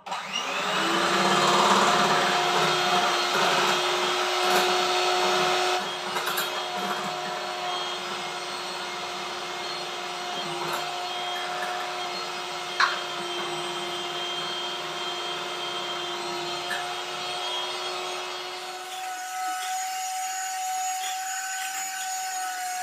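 Electric hand mixer running steadily with a motor whine, its beaters whipping eggs and powdered sugar into a foam. There is a sharp tap about halfway through, and near the end the whine shifts slightly higher.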